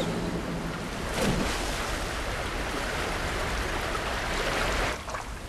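Cartoon sound effect of rushing water, a waterfall pouring into a pool, with a sudden louder surge about a second in. The rush drops away abruptly near the end.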